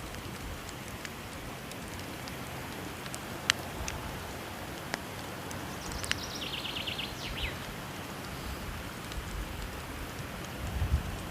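Steady rush of falling water with occasional sharp crackles and pops from a burning wood fire. About six and a half seconds in, a bird calls a quick run of short high notes, then one falling note.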